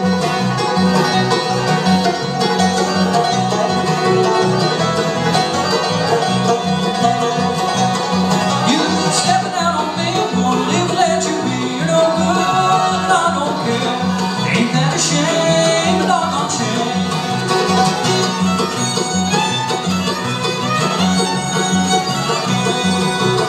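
Live bluegrass band playing: fiddle, banjo, acoustic guitar, mandolin and upright bass over a steady driving beat.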